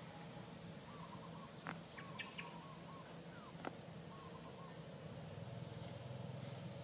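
Faint outdoor ambience with a steady low hum. A few short chirping calls and several sharp clicks come through near the middle.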